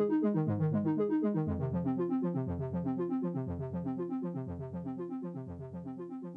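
Roland GAIA SH-01 synthesizer playing a preset patch: a fast, repeating run of short notes over a lower note pattern that recurs about once a second, fading out steadily.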